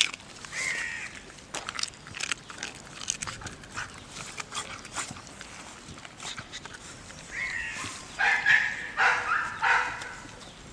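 Pit bull chewing raw chicken, with repeated sharp clicking bites throughout. Near the end comes a run of short, louder dog cries.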